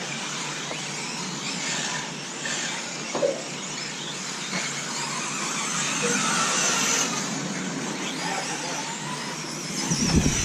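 Several nitro RC truggies racing, their small glow-fuel engines making a dense high buzz. A low rumble comes in near the end.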